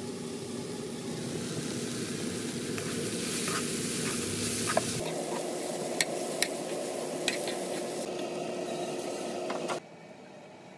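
Strips of bellflower root sizzling as they are stir-fried in a nonstick wok, with a metal spoon stirring and clicking against the pan several times. The sizzle cuts off abruptly about ten seconds in.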